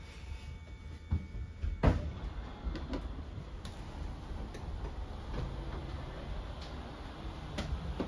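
Travel trailer's hydraulic slide-out system extending the slide rooms: a low steady pump hum with scattered clicks and knocks from the moving rooms, the loudest knock about two seconds in.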